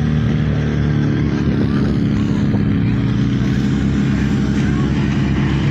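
Fire pump engine running steadily at constant high speed, with faint shouting in the distance.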